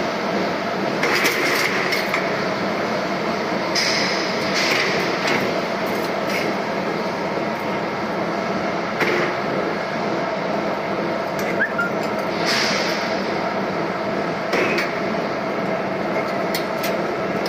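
Machinery running with a steady hum, with metal clinking and knocking every few seconds.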